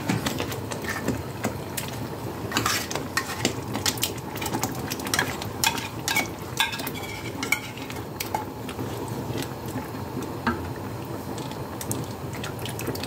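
Tomato sauce simmering and sizzling in a frying pan, with irregular clinks, knocks and scrapes of spoons against the pan as tuna is added and stirred in.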